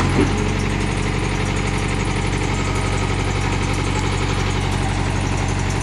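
Diesel engine of a Hitachi UH035 mini excavator running steadily while the machine works its boom and tracks to climb onto a truck bed.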